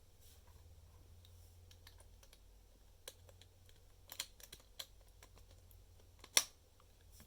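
Scattered plastic clicks and taps of Lego Technic parts being handled as wheels are fitted onto the turning system, a few close together about four seconds in and the loudest single click about six seconds in.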